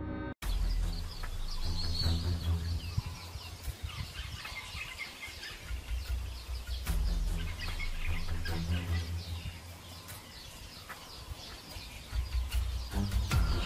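Many birds chirping and calling in quick short notes over a steady low rumble.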